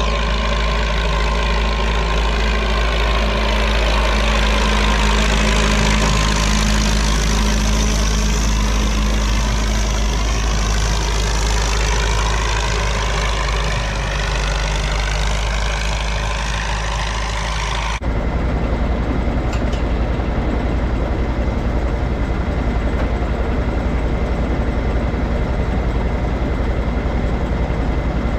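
Case 830 tractor engine running steadily while pulling a manure spreader that is throwing haylage. About 18 seconds in, the sound cuts to a different steadily running engine with a fine, even pulse.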